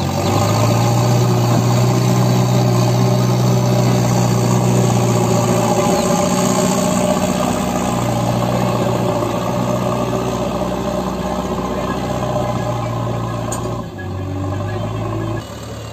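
JCB 3DX backhoe loader's diesel engine running steadily under load as the front bucket pushes soil. The sound drops and changes abruptly near the end.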